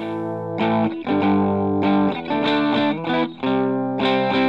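Outro music led by a distorted electric guitar playing a run of chords that change about every half second.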